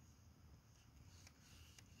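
Near silence, with two faint crackles from a wood fire burning in a fire pit.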